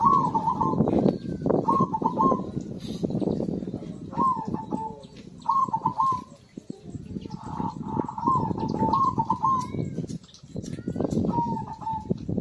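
Zebra dove (perkutut) singing its cooing song: short phrases repeated every second or two, with a couple of brief pauses. A loud, rough low noise runs beneath.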